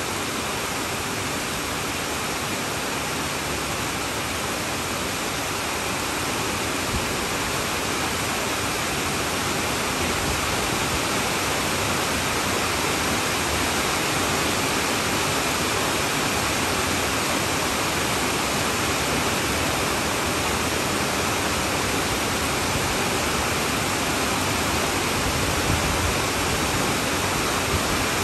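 Heavy rain falling on a tin roof: a dense, steady hiss of countless drops, getting a little louder about eight seconds in.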